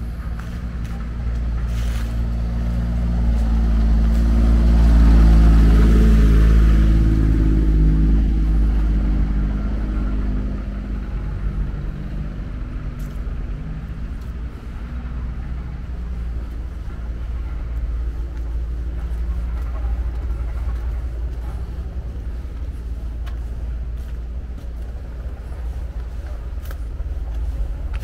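Steady low traffic rumble with a motor vehicle passing by: it swells to its loudest about five to six seconds in, with an engine drone, then fades back into the rumble.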